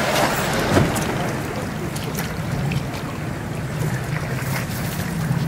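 Wind and water noise on an open pontoon boat, with a steady low hum underneath and a few light taps, the sharpest a knock just under a second in.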